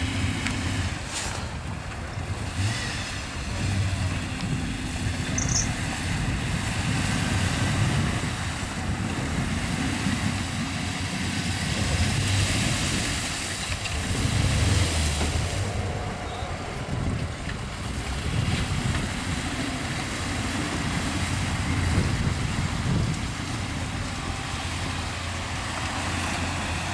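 Off-road 4x4 engines running in a mud hole, their revs rising and falling continually as the vehicles work through deep muddy water.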